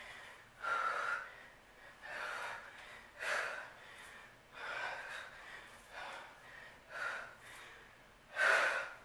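A woman breathing hard from exertion in a high-intensity workout, with a forceful breath about once a second and the loudest one near the end.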